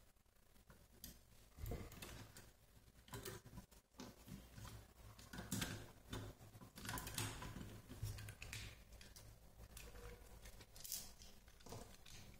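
Faint, irregular clicks, taps and rustling of small plastic parts as the plastic chassis of a small RC drift car is handled and taken apart by hand.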